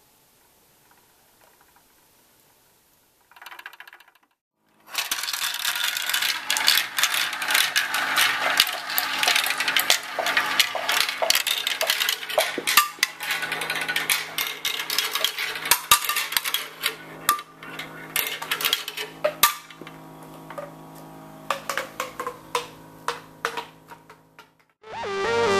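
Many marbles clicking and rattling down a marble run at once: a dense clatter starts about five seconds in, thins to scattered clicks and stops near the end.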